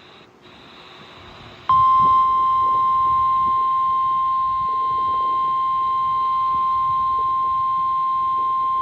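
NOAA Weather Radio warning alarm tone: after a short stretch of faint radio hiss, one loud steady single-pitch beep starts abruptly about two seconds in and holds. It signals that a warning message is about to be broadcast.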